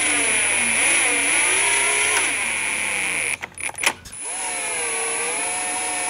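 Power drill with a 3.5 mm bit running as it bores pilot holes through a plastic grille. There are two runs with a short stop and a few clicks a little past halfway. The motor's whine sags and picks up again as the bit loads.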